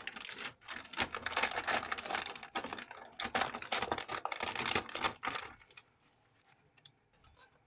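Plastic packaging of spring roll pastry sheets crinkling and crackling as it is handled and cut open with kitchen scissors. It stops about two-thirds of the way through, leaving a few faint ticks.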